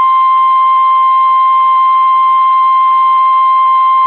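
Emergency Alert System warning alarm tone: one loud, steady, unbroken beep just above 1 kHz, the 1050 Hz weather-radio warning tone that announces a flood warning message.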